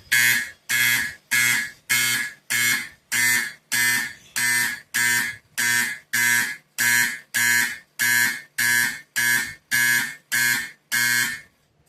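Simplex fire alarm horn sounding a coded alarm in march time: loud, even blasts at a little under two a second, the signal of a coded pull station. The blasts stop about eleven seconds in, ending the last round of the code.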